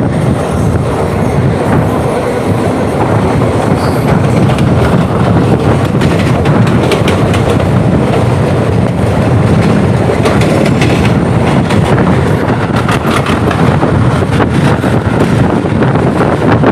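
Double-decker passenger train running on the rails: a loud, steady rumble, with the wheels clicking over rail joints from about six seconds in.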